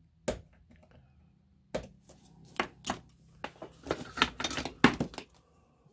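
A steel engineer's square, a knurled scriber and a small brass clip being set down and handled on a workbench: irregular light metal clicks and taps, one early and a quick run of them from about two seconds in.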